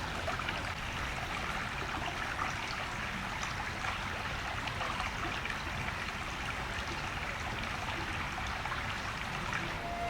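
Water running steadily, like a small stream trickling.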